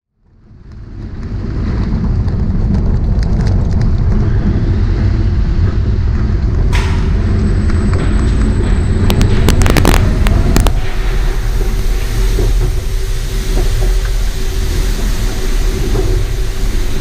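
Roller coaster train climbing its chain lift hill: a steady low rumble and rattle of the car on the lift. It fades in over the first couple of seconds, and a few sharp clacks come between about seven and eleven seconds in.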